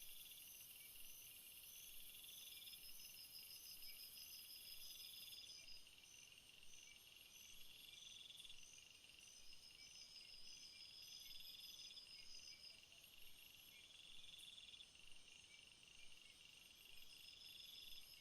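A faint chorus of crickets and other insects: steady high trills, with a lower chirping phrase repeating about every three seconds. A very high hiss drops out about five seconds in.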